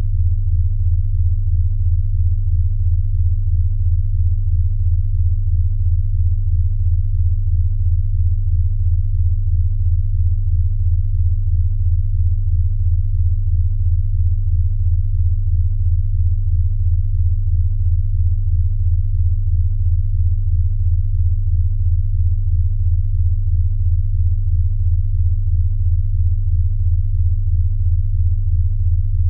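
A steady, loud, low-pitched electronic sine tone that pulses evenly and rapidly, played as a sound-therapy tone meant to stop snoring.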